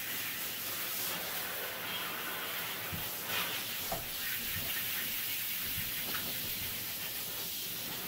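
Handheld shower sprayer running, water spraying steadily onto a dog's coat and into the bathtub, with a couple of faint knocks about three and four seconds in.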